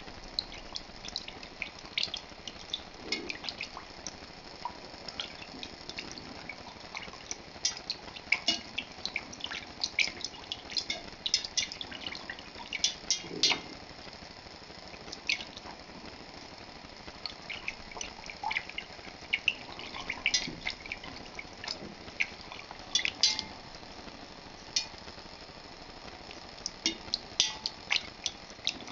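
Milk being stirred in a stainless steel pot with a metal utensil: liquid sloshing with frequent irregular light clinks of metal against the pot.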